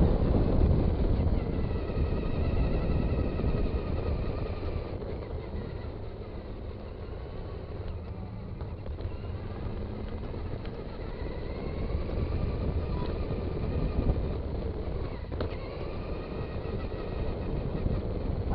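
Traxxas Stampede 2WD RC truck driving, its electric motor whining faintly over a rough rumble of tyres and wind on the onboard microphone. Loudest at the start, it eases off, then builds again past the middle.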